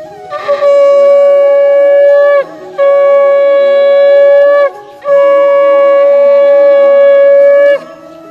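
Conch shell (shankha) blown three times in long, steady blasts on one held note, each ending with a short drop in pitch: the conch call of the Bengali evening lamp worship.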